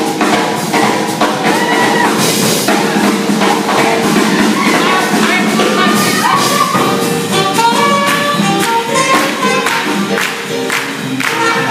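Live swing jazz band playing, with drums keeping a steady beat under guitar and trumpet.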